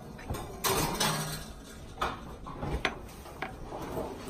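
Wire oven rack sliding on its metal runners and a baking pan set down on it: a few metallic scrapes and clinks.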